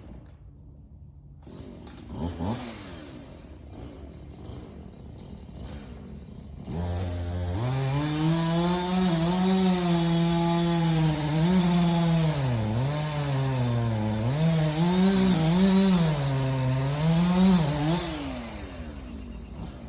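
Two-stroke chainsaw: a short rising rev about two seconds in, then the saw runs at high speed from about seven seconds in, its pitch rising and dipping repeatedly as it cuts, before dropping away near the end.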